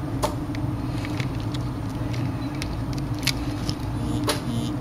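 Steady low background hum under a scattering of small, sharp clicks and taps as the opened phone and its parts are handled.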